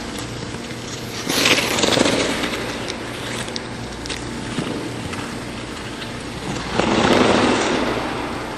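Figure skate blades carving and scraping across ice in two passes, each a loud hissing swell lasting about a second and a half, over a steady low hum.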